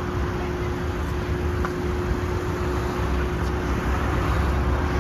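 Steady road traffic noise, a continuous wash of passing vehicles with a low rumble and a faint steady hum.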